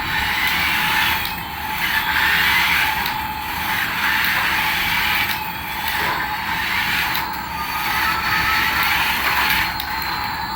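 Small electric motor and plastic gears of a radio-controlled toy whirring and rattling, swelling and fading about every two seconds.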